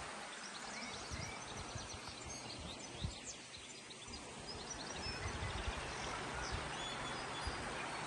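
Shallow rocky stream rushing over stones, quieter in the middle and fuller again from about five seconds in, with small birds chirping and singing over it. One brief knock about three seconds in.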